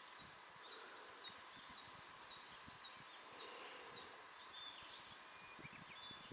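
Near silence: faint outdoor ambience with scattered, faint, high bird chirps.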